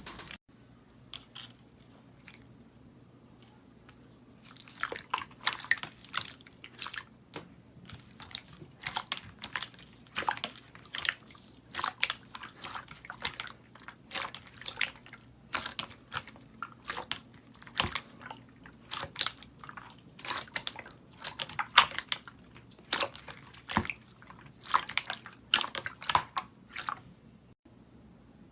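Slime being squeezed and poked by hand, giving a run of short, crisp clicking pops, several a second, starting about four seconds in.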